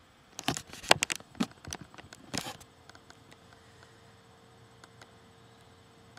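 Handling noise from a hand-held camera being turned and repositioned: a flurry of knocks, taps and rubbing in the first two and a half seconds, then a faint steady hum.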